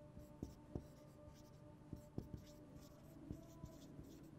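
Marker pen writing on a whiteboard: a faint string of short strokes and taps as the letters are formed.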